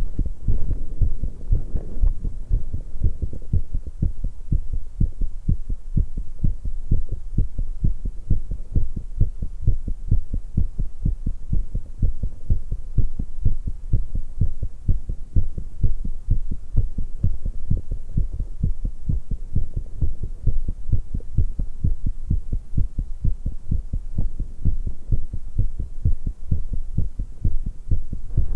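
A young woman's heartbeat, fast and pounding after exercise: a quick, even train of low thuds with a low hum under it.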